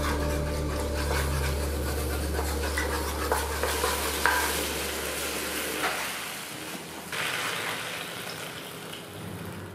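Sauce sizzling and bubbling in a wok while a wooden spatula stirs it, with light scrapes and taps on the metal. It is the soy and vegetarian oyster sauce being thickened with a cornstarch slurry. A low hum underneath stops about six seconds in.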